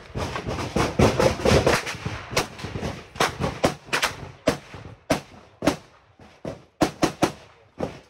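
Gunfire: a dense run of sharp shots in the first two seconds, then single cracks at irregular intervals of about half a second, thinning out toward the end.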